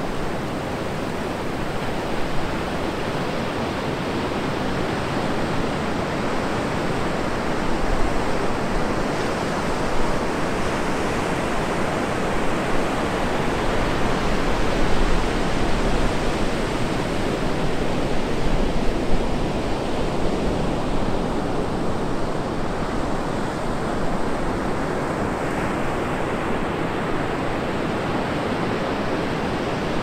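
Atlantic surf breaking and washing onto a sandy beach: a steady, dense rush of waves that swells a little now and then without ever dropping away.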